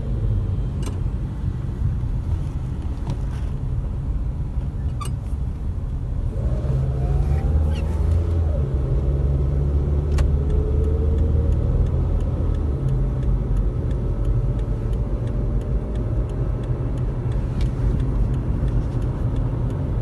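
Engine and road noise of a car being driven, heard from inside the cabin as a steady low rumble that grows a little heavier about six seconds in as the car picks up speed.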